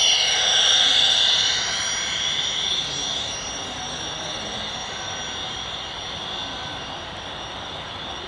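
Sound-equipped HO scale model of a Union Pacific gas-turbine locomotive going by, its speaker playing a jet-like turbine whine. The whine is loudest in the first second or two and fades to a quieter steady hiss as the locomotive moves away.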